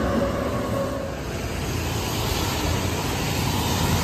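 Traffic on a rain-wet street: a tram passing with a steady motor whine that fades about a second in, then a car's tyres hissing on the wet road.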